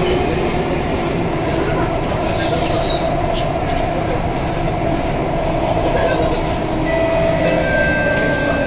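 SMRT C151 metro train running, heard from inside the car: a steady rumble of wheels on rail with a hiss pulsing about twice a second. About seven seconds in, steady electric whine tones at several pitches come in as the train slows for Changi Airport station.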